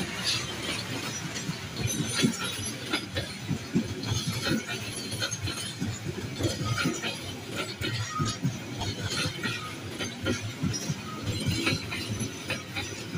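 Passenger coaches rolling past on a curve, their wheels clanking and clicking over the rail joints with short, high squeals from the wheels in the bend.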